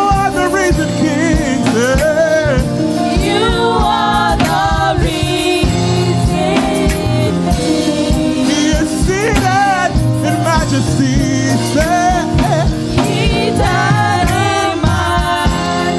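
Live gospel praise music: voices singing over instrumental accompaniment with a steady drum beat.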